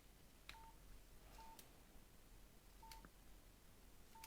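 Faint keypad tones from a Nokia 5610 XpressMusic as its keys are pressed to move through the menus: four short beeps of the same pitch, spaced unevenly, with light key clicks between them.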